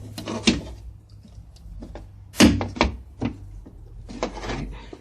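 A flat-head screwdriver prying at the plastic clips of a Ford E250 van's inner door trim panel: a series of sharp plastic knocks and clicks, the loudest about halfway through, with a scrape near the end.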